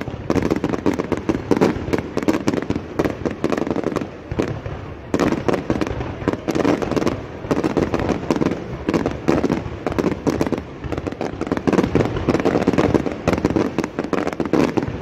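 Aerial fireworks display going off: a rapid, dense string of bangs and crackles with a short lull about four seconds in.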